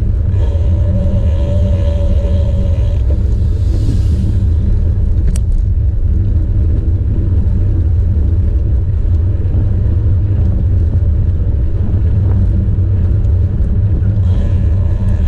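Steady loud wind rumble and road noise picked up by a camera riding on a bicycle moving along an asphalt road.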